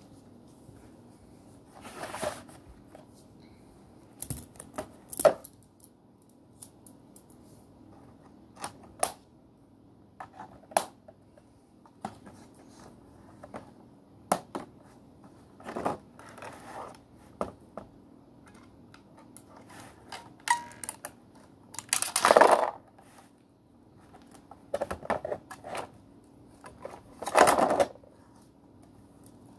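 Small plastic toy pieces and their packaging being handled: scattered clicks and taps, with a few louder rustling swishes, the loudest about two-thirds of the way in and again near the end.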